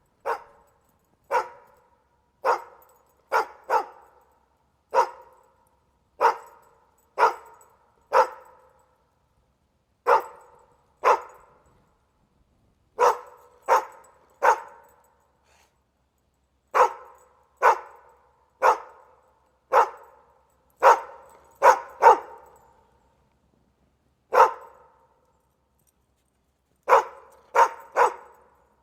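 A dog barking: about two dozen short single barks with silence between them, mostly a second or so apart, some in quick pairs and a few after pauses of two to three seconds.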